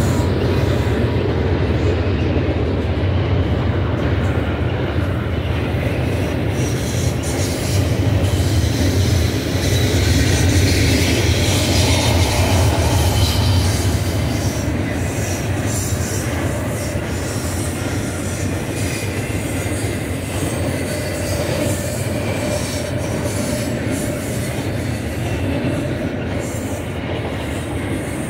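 Double-stack container cars of a freight train rolling past on a curve: a steady, loud rumble of steel wheels on rail with some wheel squeal, easing slightly about halfway through.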